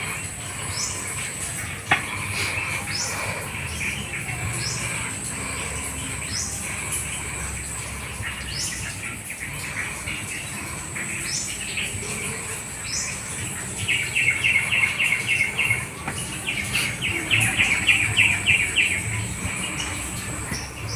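Outdoor bird and insect chorus: a steady high insect whine, with short rising bird chirps every second or two. About two-thirds of the way through come two bursts of a fast pulsed trill, the loudest sounds here.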